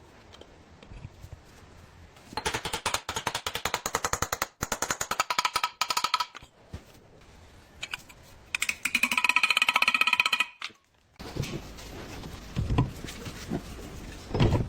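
Impact tool hammering rapidly in two bursts, the first about four seconds long and the second about two, with a ringing metallic tone, as on truck wheel or brake fasteners. A few dull knocks follow near the end.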